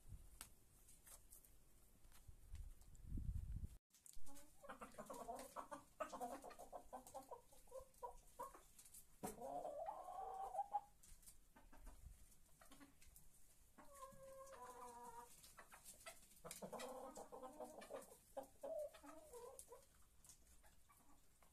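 Chickens clucking, in several stretches, with one short, higher call near the middle. A brief low rumble comes about three seconds in.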